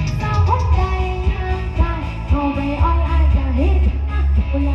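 Music played loud through an outdoor PA sound system with 18-inch BV bass cabinets: heavy, steady bass with a sliding melody line over it.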